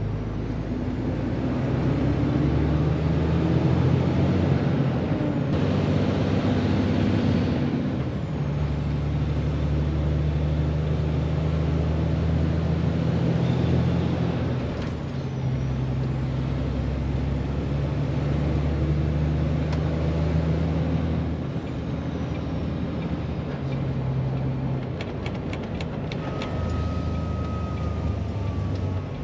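MAN truck's diesel engine heard from inside the cab while driving. The engine note changes pitch in steps every few seconds as the truck shifts gear, and a faint high whistle falls away at each change. A short run of clicks comes near the end.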